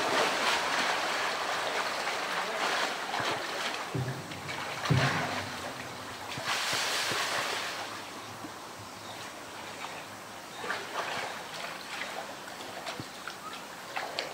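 A polar bear splashing in a pool: a loud splash as it goes in at the start, then water washing and sloshing. There are two dull knocks about four and five seconds in and another burst of splashing about seven seconds in, after which the water settles to quieter lapping.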